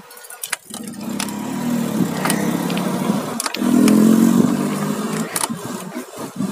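A car's engine passing close by. It grows louder to a peak about four seconds in, then fades as the car moves away.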